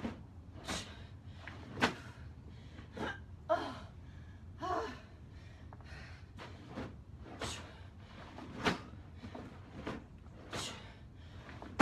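A woman breathing hard under exertion, with a sharp exhale about once a second in time with repeated sandbag low cleans, a few of them voiced like grunts. A thump comes right at the end.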